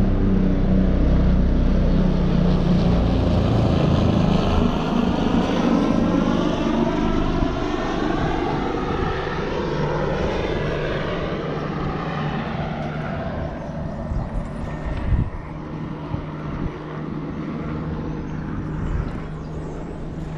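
A passing engine drones steadily with a low hum and a slowly shifting whoosh. It is loud at first and fades gradually away. There is a single sharp knock about three quarters of the way through.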